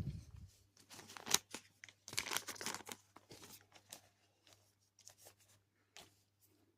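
Small plastic robot parts and tiny screws being handled: scattered light clicks and taps, with a stretch of rustling about two seconds in.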